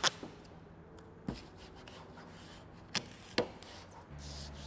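Masking tape being pulled off its roll and torn, a few short sharp rips spaced out over a few seconds, then pressed onto a car's paintwork.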